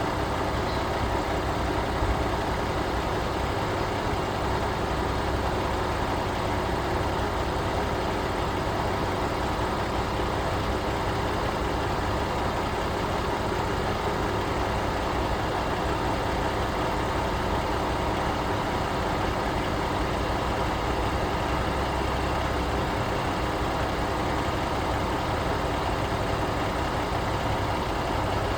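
Freightliner truck's diesel engine idling steadily.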